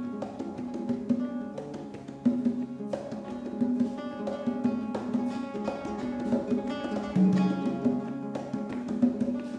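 Nylon-string acoustic guitar played fingerstyle, a steady run of plucked notes and chords ringing on.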